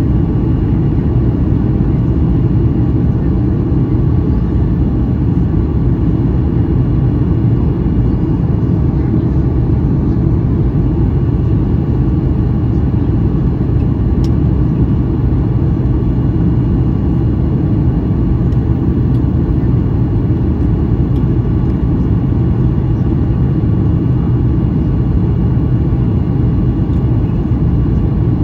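Steady low cabin rumble inside a Boeing 737 MAX 8 in flight, from its CFM LEAP-1B engines and the airflow along the fuselage, heard from a window seat behind the wing on the approach to landing.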